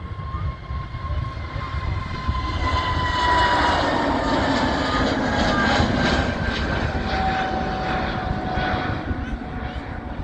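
Airbus A320neo jet airliner passing: jet engine noise swells to its loudest in the middle and then eases off, with a fan whine that slides slowly down in pitch as the plane goes by.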